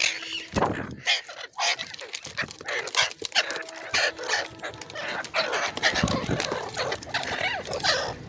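Ringneck parrot calling: many short calls in quick succession.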